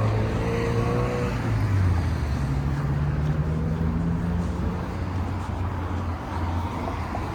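Road traffic at an intersection: motor vehicle engines running close by with a steady low hum, over a wash of traffic noise.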